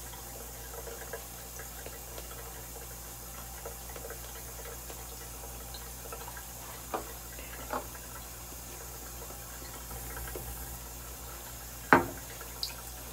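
Shaving brush working lather onto a face: soft wet swishing of brush and lather over a steady background hiss. A sharp knock near the end.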